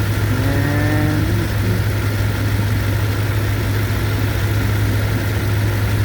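Toyota Tundra 5.7-litre V8 idling steadily.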